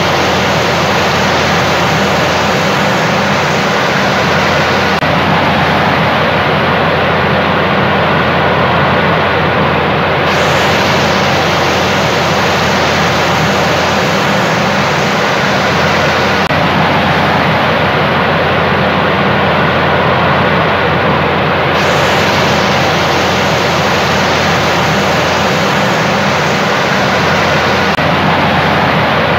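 Rain pouring steadily onto a puddle on bare ground: a loud, even hiss of splashing drops.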